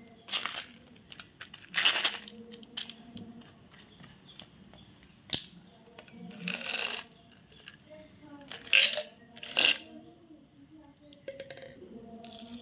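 Chocolates and their wrappers being handled: a series of about seven short rustling, clattering noises, with one sharp click a little past five seconds in.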